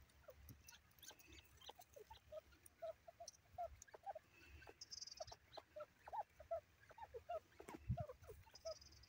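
Grey francolins giving faint, short call notes, irregular at about three or four a second. A single sharp knock sounds near the end.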